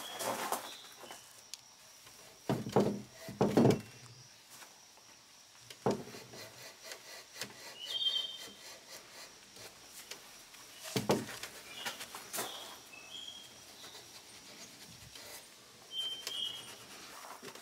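Steel wool rubbing and scrubbing stripper-softened paint off a turned wooden table leg, in irregular strokes with a few louder scrapes.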